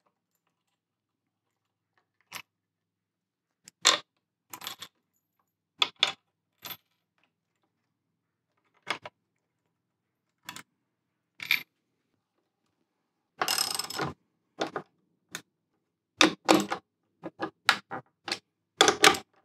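Steel lag bolts, washers and a socket wrench clinking and clicking in short, scattered bursts as the bolts are set and tightened down into the wooden bench, with a longer rattle about thirteen seconds in and a run of quick clicks near the end.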